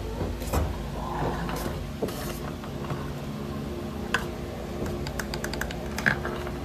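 Scattered clicks and knocks from handling a mini sewing machine's styrofoam packing and its power adapter cord, with the sharpest knocks about four and six seconds in. A steady low mechanical hum runs underneath.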